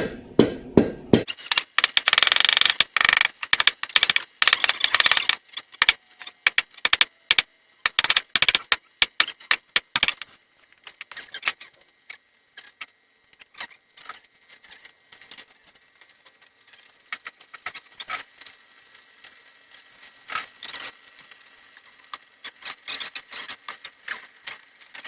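Irregular metallic clattering and rattling of steel and tools, a dense, loud run of clanks in the first few seconds, then scattered clicks and clinks.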